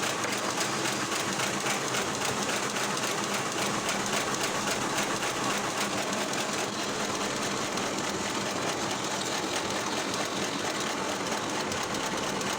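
Wood-processing machine running steadily, with a fast, even mechanical clatter.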